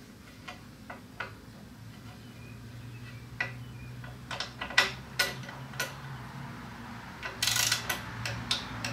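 Torque wrench clicking as the skid-plate bolts are tightened to 85 inch-pounds: scattered sharp ratchet clicks that come faster and louder as it goes, with a quick run of clicks near the end.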